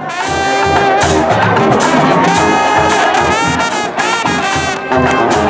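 Brass band music: trumpets and trombones playing over a steady low drum beat, starting right at the beginning.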